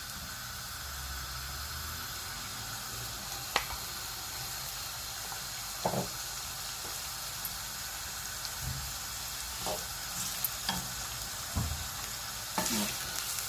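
Sliced onions sizzling steadily in hot oil in a pan, with a few light clicks scattered through.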